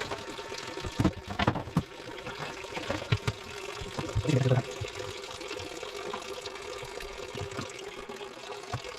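Toilet cistern refilling through its fill valve: water running in with a steady hiss and a constant hum. A few knocks come in the first few seconds, and a louder, lower clunk comes a little over four seconds in.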